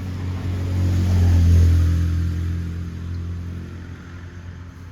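A motor vehicle passing close by: a low engine hum that swells to its loudest about one and a half seconds in, then fades as it moves away.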